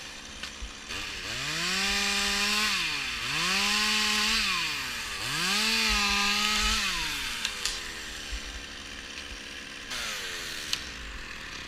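Two-stroke chainsaw engine revved up from idle three times in a row, each rev rising quickly, holding a few seconds and dropping back, with a fainter rev falling away near the end.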